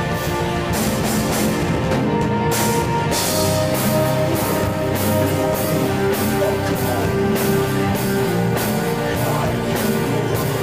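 Doom metal band rehearsing: distorted electric guitar playing over a drum kit, with cymbals struck at a steady pace of about two hits a second. Recorded through an iPhone's microphone.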